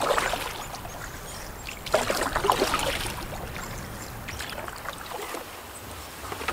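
Canoe paddle strokes splashing and dripping in choppy lake water, with a stronger stroke at the start and another about two seconds in.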